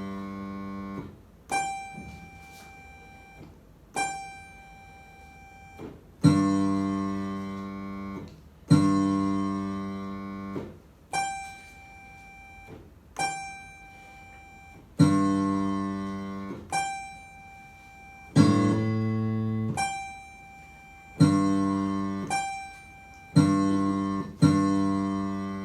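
An instrument played one note at a time in a listening game, alternating between low notes and high notes, about a dozen in all, a second or two apart. Each note is struck and rings down; the low notes ring longer and fuller, the high ones are thinner and shorter.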